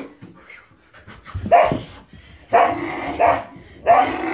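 Puppy barking: three barks, starting about a second and a half in and roughly a second apart.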